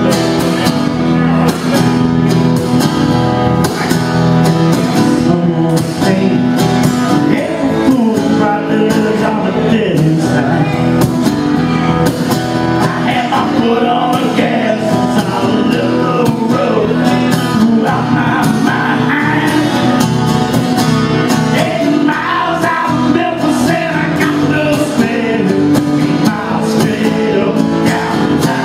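A man singing live into a microphone while strumming an acoustic guitar.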